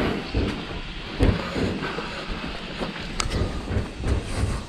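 Footsteps on a cobblestone lane, about two a second, under a steady low rumble.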